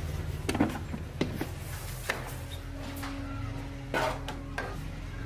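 A handful of sharp clicks and knocks, like tools or parts being handled, over a steady low hum.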